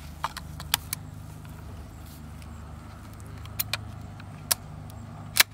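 Several short, sharp metallic clicks as a pellet is loaded into a Seneca Eagle Claw air rifle and its action is worked, with the loudest click near the end. A steady low hum runs underneath.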